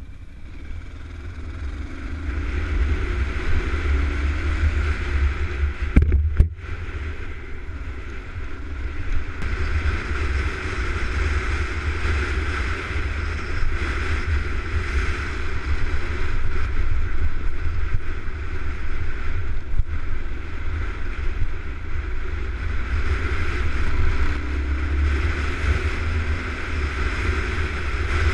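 Dual-sport motorcycle running along a dirt track, heard from a camera mounted on the bike, with heavy wind buffeting on the microphone. A sharp double knock about six seconds in.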